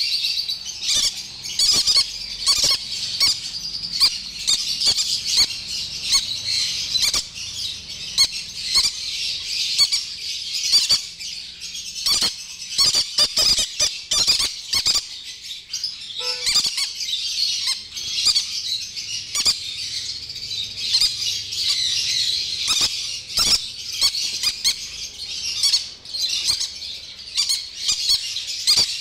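Young red-factor pineapple green-cheeked conures calling without pause, a dense high-pitched squawking chatter, with frequent short clicks and knocks throughout.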